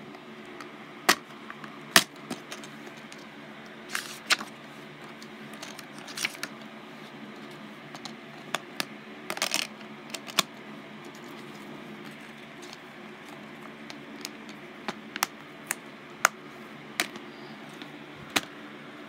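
Plastic Blu-ray cases being handled: scattered sharp clicks and clacks as a case is opened, a disc is touched in its hub and cases are set down, with a brief rattle about nine seconds in. A faint steady hum runs underneath.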